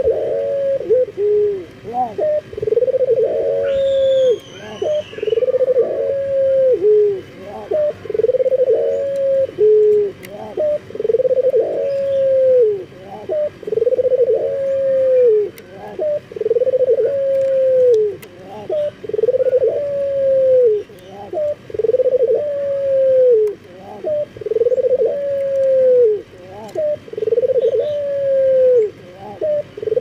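Male Barbary dove (puter) in breeding condition giving its bowing coo, a rolling coo that falls at the end, repeated evenly about every two seconds.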